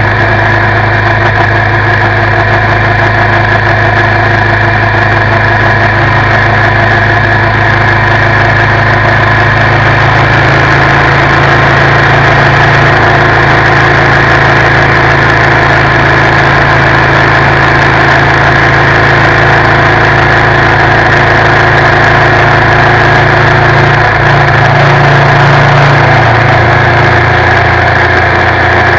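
Suzuki V-Strom 650's 645 cc V-twin engine running steadily while riding, heard from low on the front crash bar. The engine note rises slightly about ten seconds in and falls back a little a few seconds before the end.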